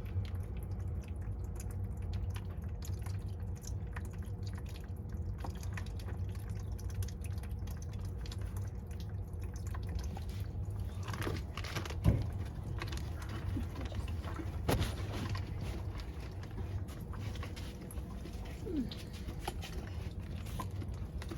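Water dripping and trickling from a cut household water pipe into a catch container, with scattered small clicks and two sharper knocks about 12 and 15 seconds in, the first the loudest.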